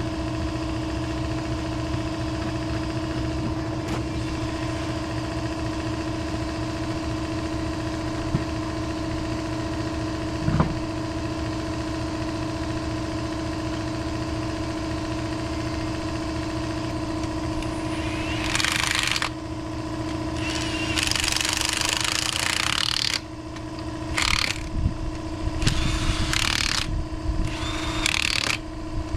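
An engine running steadily at an even speed. In the last ten seconds it is joined by several separate bursts of hissing noise.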